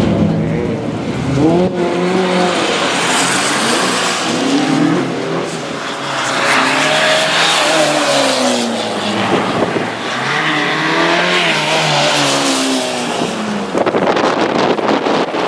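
Rally car engine revving hard, its pitch rising and falling again and again, over a steady hiss of tyre noise.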